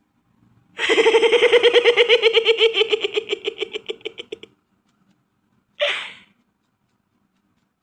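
A cartoon voice laughing: one long, high, rapidly pulsing giggle lasting about three and a half seconds, fading at the end. A short high cry follows a little over a second later.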